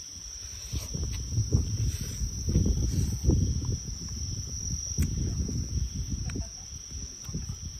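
Insects calling in one steady, unbroken high-pitched tone, over irregular low thumps and rumbles with a few sharp clicks.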